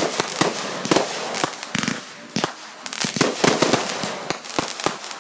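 Fireworks going off in a rapid string of sharp cracks and pops, dense crackling with louder bangs scattered through it.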